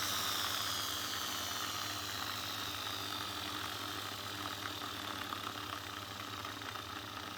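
Electric drilling machine motor running steadily with a high whine that slowly falls in pitch.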